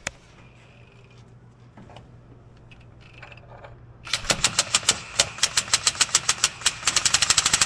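A socket ratchet clicking as it is turned: quick, even clicks starting about halfway through, speeding up near the end.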